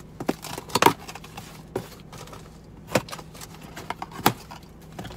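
A package being cut open with a utility knife: a few sharp clicks and scrapes of the blade and the handled box, the loudest about a second in.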